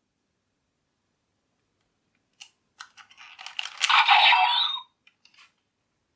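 Plastic toy parts clicking and clattering as the DX Barid Rex and Volcano Vistamp toys are handled: a run of sharp clicks starting about two seconds in, then a louder rattling burst, and a few faint clicks near the end.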